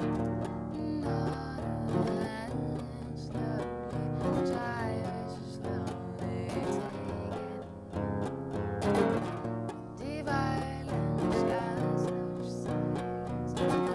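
Acoustic guitar playing strummed and plucked chords, the instrumental introduction to a song before the vocal comes in.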